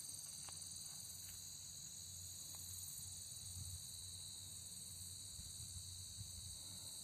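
Steady, high-pitched chorus of singing insects, an unbroken trilling drone, over a faint low rumble.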